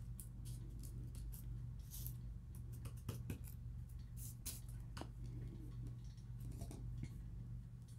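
Paper rubbed and pressed down by hand on a kraft paper tag and brushed over with glue: a string of short, dry rustles and scratches over a steady low hum.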